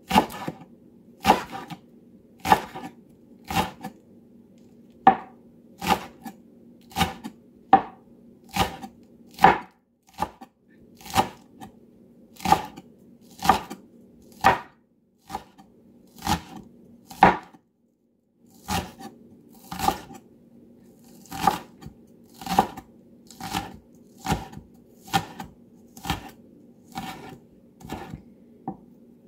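Cleaver mincing spring onions on a wooden cutting board: steady, even knocks of the blade striking the board, about one and a half a second, with a brief pause about 18 seconds in.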